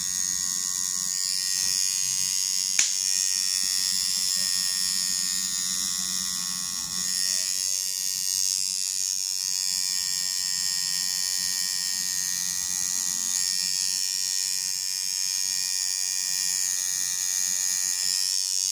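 Electric tattoo machine buzzing steadily while it needles ink into the skin of a back, with one sharp click about three seconds in.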